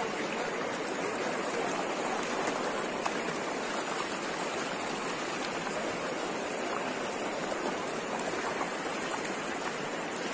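A shallow, fast river running over rocks: a steady rush of rapids.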